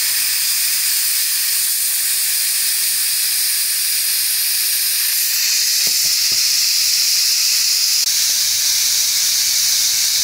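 Steam hissing steadily out of a Housmile 6-quart electric pressure cooker's steam-release valve as the pressure is let off after cooking (quick release). The hiss shifts in pitch and grows a little stronger about five seconds in.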